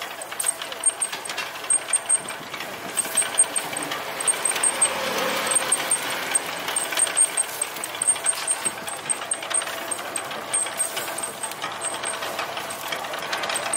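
Charcoal fire crackling with frequent sharp pops under meat roasting on a turning metal spit, over a steady mechanical hum.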